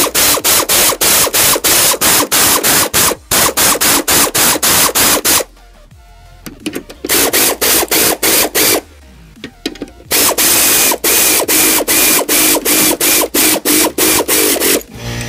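Cordless power ratchet running down the bolts of a lawn mower deck's spindle assembly: three bursts of rapid, even clicking, about five a second, with two short pauses between them.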